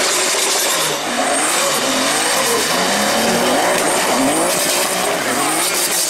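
Drift car's engine revving hard, its pitch rising and falling repeatedly as the car slides sideways, with tyres skidding on wet asphalt.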